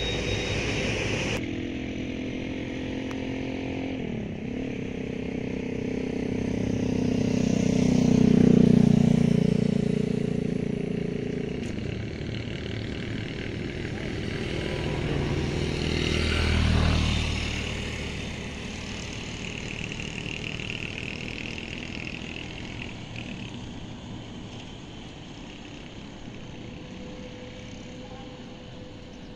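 Vehicle engines passing close by: a droning engine sound swells to a peak about eight seconds in, then fades, and a second pass peaks about seventeen seconds in before the noise dies down to a steady low rumble.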